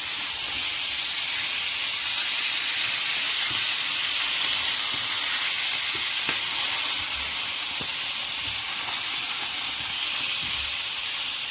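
Stuffed squid tubes frying in a pan, with a steady sizzle.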